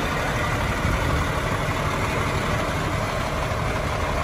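1990 International water truck's Cummins diesel engine idling steadily.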